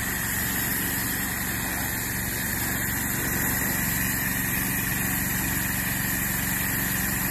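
Pressure washer running, its jet hissing steadily against a car's painted body panels over the steady hum of the machine's motor and pump.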